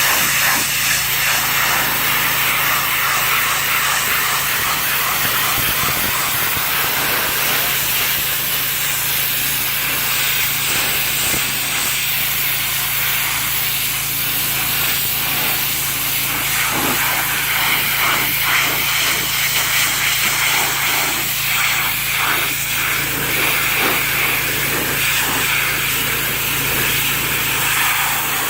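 Pressure washer spraying water onto a vehicle seat: a steady hiss of spray over the machine's constant low hum, with uneven scrubbing streaks through the middle.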